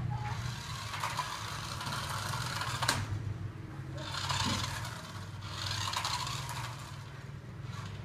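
Small battery-powered toy remote-control car driving on a concrete floor: its motor whirs and its wheels scrape in spurts, over a steady low hum, with a sharp click about three seconds in.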